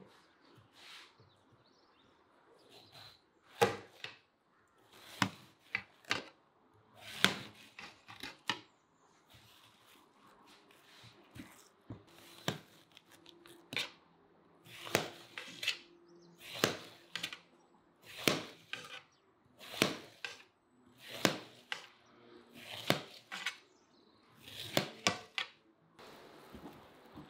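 A knife cutting watermelon into slices on a metal tray: a series of sharp cuts, about one a second, with a short pause partway through.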